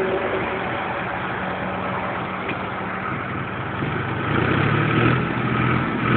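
Tractor engine running steadily, then revving harder from about four seconds in as the stuck tractor is worked to get free.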